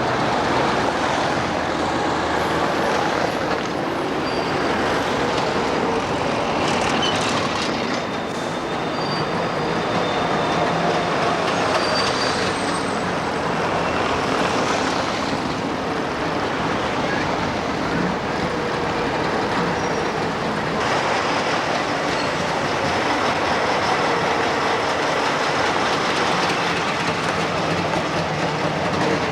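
Tram rolling along the street amid traffic, with a few brief high squeals from its wheels on the rails.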